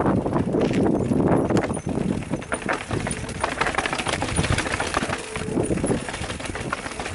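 Mountain bike clattering down concrete steps: tyres knocking on each step edge and the frame and parts rattling, in a quick irregular run of knocks. A heavy low rumble is loudest in the first two seconds.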